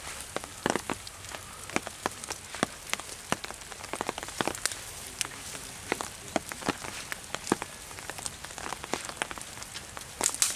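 Irregular crackling and snapping of dry grass and twigs being trodden and pushed through, a few sharp clicks a second over a soft hiss.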